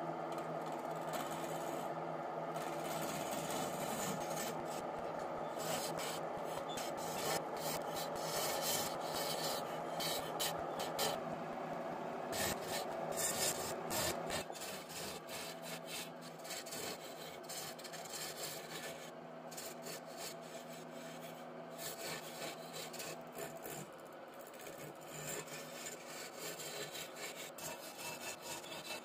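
Wood lathe running while a hand-held turning chisel cuts into a spinning wooden baluster blank: a continuous scraping hiss of the tool shaving wood over the steady hum of the lathe. The cutting noise drops a little about halfway through.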